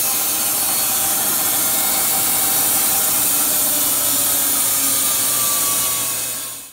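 Wood-Mizer band sawmill running as its nail-damaged band blade comes out of the end of the cut. The blade was dishing in the cut, and it broke out at the end with the band lifting. A steady hissing run with faint tones sliding slowly down in pitch, which stops abruptly near the end.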